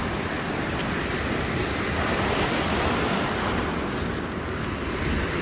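Lake Michigan surf breaking and washing along the shore, a steady rush with some wind. From about four seconds in, a run of small sharp clicks rides over it.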